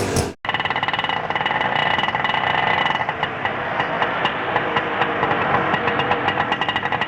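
Auto rickshaw engine running at idle: a rapid, even chugging with a metallic rattle. It starts suddenly after a short gap near the beginning.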